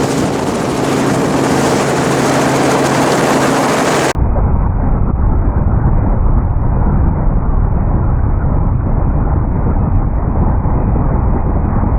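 Helicopter in flight: steady rotor and engine noise with a level hum. About four seconds in it abruptly turns to a muffled, low rumble.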